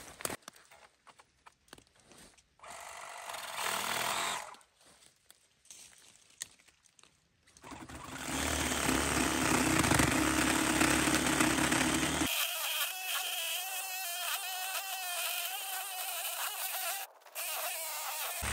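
Cordless reciprocating saw cutting wood: a short run about three seconds in, then steady sawing from about eight seconds on, with a brief stop near the end. Footsteps and rustling in dry brush come before the saw starts.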